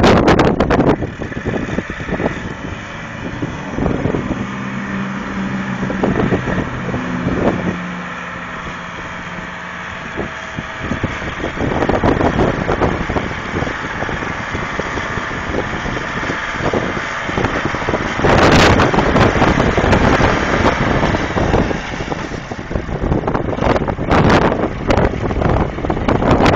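Wind buffeting the microphone in gusts, the strongest about two-thirds of the way in, over the steady running of a lifeboat launch tractor's engine.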